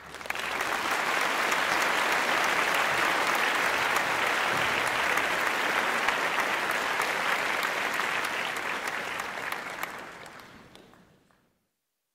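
Audience applauding: dense clapping that starts suddenly, holds steady, and dies away about ten to eleven seconds in.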